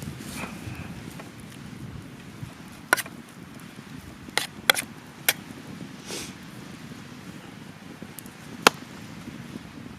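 Several sharp cracks or knocks, five spread over a few seconds, over a steady rush of stream water.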